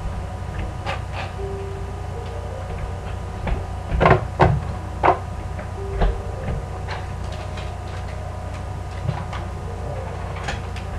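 Kitchen clatter from someone working at the counter: a scattering of knocks and clicks, the loudest cluster about four to five seconds in, over a steady low hum.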